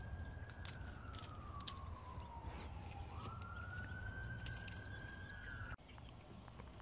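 Faint emergency-vehicle siren wailing: one slow tone that falls in pitch for about two seconds, jumps back up and rises again, then cuts off abruptly near the end.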